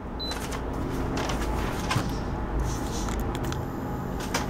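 A short high beep about a quarter second in as the Instant Pot electric pressure cooker is plugged in and powers up, over a steady low background hum, with a few light clicks.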